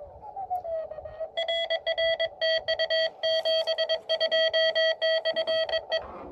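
Morse code (CW) tone from a ham radio transceiver: a steady mid-pitched note keyed rapidly on and off in short and long elements, the beeps of a CW exchange. Near the start a tone slides briefly down in pitch before the keying begins.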